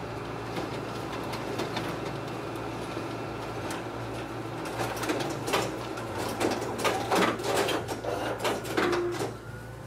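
Toshiba e-Studio multifunction color copier running a copy job from its document feeder into the stapling finisher: a steady machine hum, with a run of clicks and clatter of paper handling and finishing in the second half, dying down near the end.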